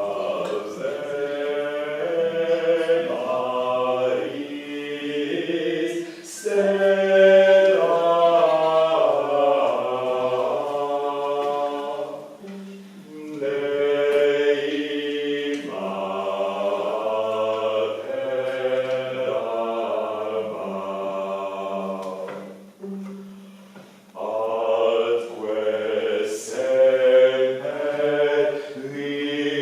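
Voices singing early Iberian vocal music in slow phrases, a low held note under higher moving lines, with short breaks between phrases.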